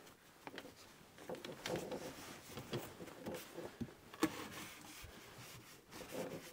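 A cloth towel rubbing and rustling as it is stuffed around a cord in a window opening, with scattered small clicks and a sharp knock about four seconds in as the sliding window pane is handled.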